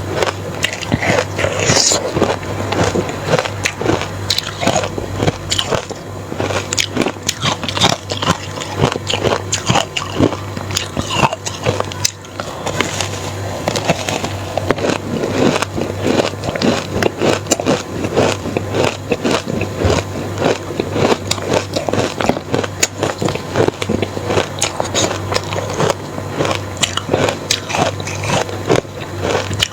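Close-miked crunching of matcha-dusted, reshaped crushed ice being bitten and chewed: a dense run of crackling crunches in quick succession.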